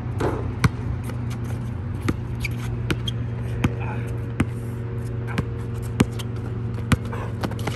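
A basketball bouncing on an outdoor asphalt court as a player dribbles and moves with it: about nine sharp bounces at uneven intervals, with sneakers scraping on the court, over a steady low hum.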